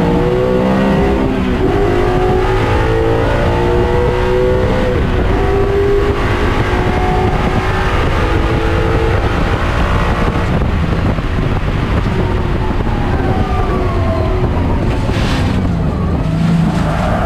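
Coyote V8 of a Ford Mustang race car, heard from inside the cockpit, accelerating hard with the revs climbing through a series of upshifts. The revs then fall away under heavy braking and downshifts, with a short sharp burst of noise about fifteen seconds in.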